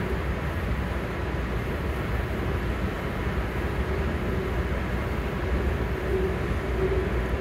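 MARC commuter train running at speed, heard from inside the passenger car: a steady rumble with a faint steady hum over it.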